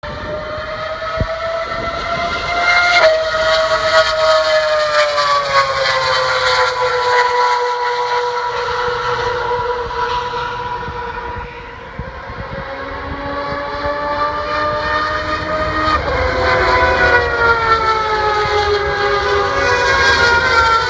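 High-revving racing car engine screaming at a high pitch as the car laps the circuit. Its pitch steps down sharply about 3 seconds in and again about 16 seconds in, then glides lower.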